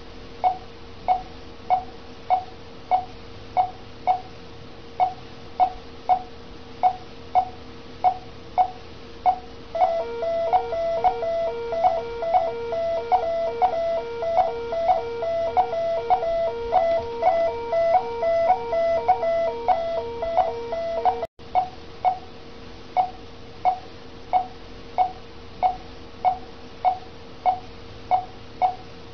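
Bedside patient monitor beeping evenly, a little under two beeps a second, the pulse tone that tracks the patient's heartbeat. From about a third of the way in, a louder, rapidly pulsing alarm tone sounds over the beeps and stops abruptly about two-thirds through. A faint steady hum runs underneath.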